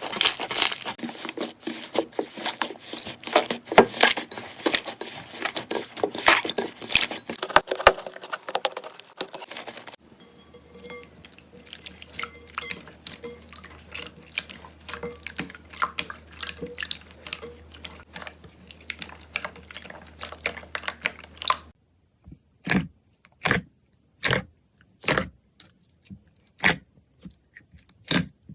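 Slime being handled close up, crackling and popping. The first ten seconds or so are a dense crackle, then softer clicking over a faint low hum, and in the last seconds separate pops, about one a second.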